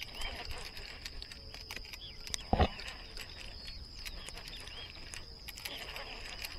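Steady high insect drone with repeated short bird chirps and scattered small clicks; a single dull knock about two and a half seconds in.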